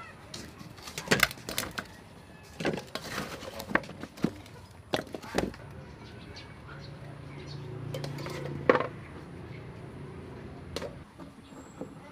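Bowls and dishes being handled on a table: a string of sharp clinks and knocks, most of them in the first half, with a few spaced ones later.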